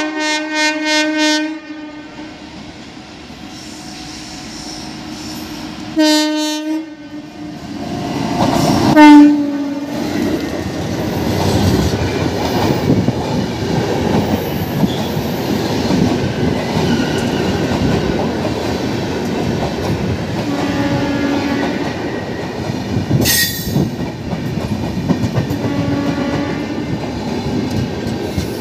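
An Indian Railways WAP-7 electric locomotive sounding its horn as it comes in: one blast ending a moment in, another about six seconds in, and a short, loudest blast about nine seconds in as it runs past. Then the train's coaches pass close by with a steady rumble and a fast clickety-clack of wheels over the rail joints.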